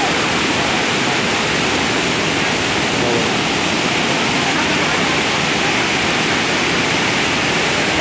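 Waterfall cascading over rocks and boulders: a steady, loud rush of falling water.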